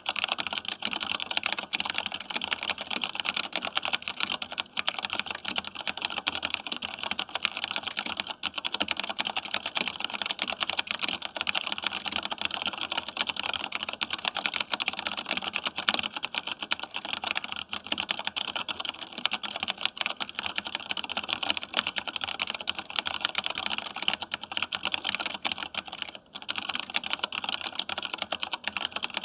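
Fast, continuous typing on a Compaq G80-11800 mechanical keyboard with vintage Cherry MX Brown switches, thick keycaps and no mounting plate: a dense stream of key clicks and clacks, with a brief pause a few seconds before the end.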